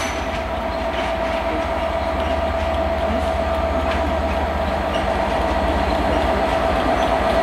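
Class 67 diesel locomotive hauling passenger coaches, approaching slowly. Its engine runs with a low rumble and a steady whine, and the sound grows louder as it draws near.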